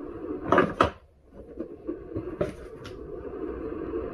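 Hard clunks and knocks of an electric unicycle's pedal and its fittings being handled as the pedal is put back on: two knocks close together about half a second in, then two more around two and a half seconds in.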